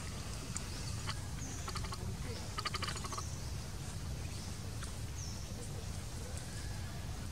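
Outdoor forest ambience: a steady low rumble with faint high chirps now and then and a short rattling call about two to three seconds in.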